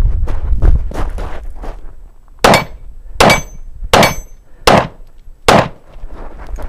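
Five 9mm shots from a Glock 19 pistol, fired about three-quarters of a second apart, with a brief ringing after each that fits hits on steel targets. Before and after the shots come quick footsteps crunching on gravel, with low wind rumble on the microphone.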